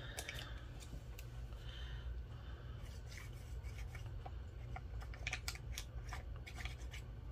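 Paper and craft materials handled on a work surface while glue is applied: scattered light clicks and rustles, clustered about five to seven seconds in, over a steady low hum.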